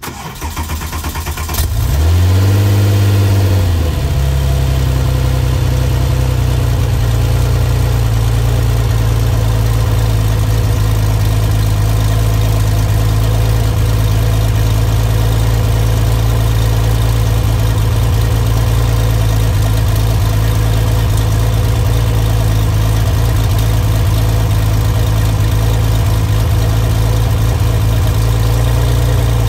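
Ed Pink-built 4.0-litre air-cooled flat-six of a Singer-reimagined Porsche 964 with individual throttle bodies starting up: the revs flare up and fall back over about two seconds, then the engine settles into a steady idle.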